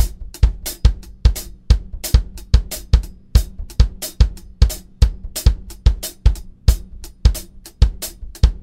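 Acoustic drum kit playing a steady polyrhythmic groove: bass drum and snare with hi-hat and cymbals, the hi-hat accented every other stroke, with heavy low hits about two to three times a second.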